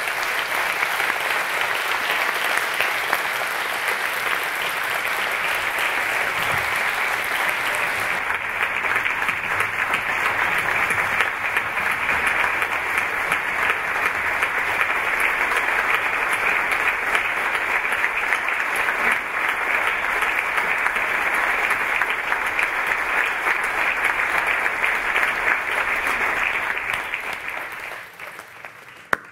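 A large audience clapping continuously, then dying away over the last couple of seconds.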